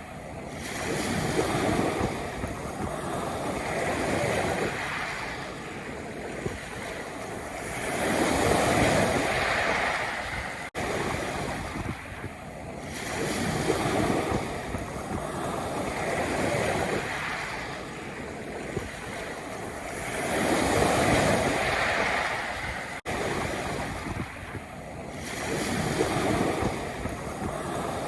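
Sea waves breaking and washing over a pebble beach, surging in about every four seconds. The sound cuts out very briefly twice, about eleven seconds in and again near 23 seconds.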